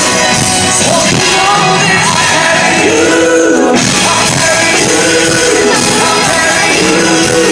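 Pop vocal group singing live over loud band backing at a sound check.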